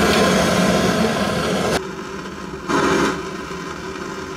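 Handheld gas torch burning with a steady rushing roar as it heats the washing machine's rotor bolt to loosen its thread-locking compound. The flame is loud for the first two seconds, then drops to a quieter steady burn with a brief surge about three seconds in.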